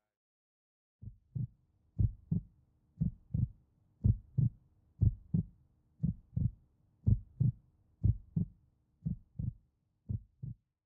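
Heartbeat sound effect: paired lub-dub thumps about once a second, starting about a second in, about ten beats in all, the last few a little quieter.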